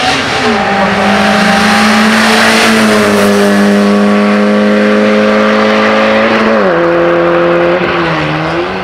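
Peugeot 106 Rallye racing car's engine pulling hard at high revs, its pitch held high and slowly climbing, with sharp drops about half a second and six and a half seconds in as it shifts gear, and a brief dip and recovery near the end.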